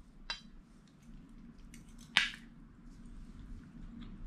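Metal spoons and forks clinking and scraping on ceramic plates as food is eaten. The loudest clink comes just after two seconds in, with a fainter one near the start and small ticks between.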